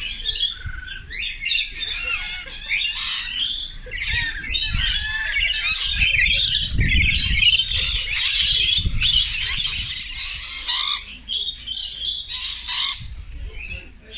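Rainbow lorikeets screeching and chattering, many shrill calls overlapping with hardly a break.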